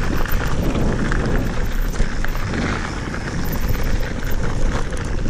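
Santa Cruz Bronson mountain bike rolling down a loose gravel and small-stone trail: tyres crunching over the stones, with a steady rattle and many small knocks from the bike.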